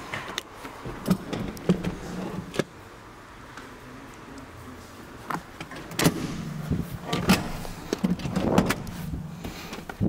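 Clicks and knocks of a car's seat controls and interior trim being handled, coming in clusters, with a low hum underneath at times.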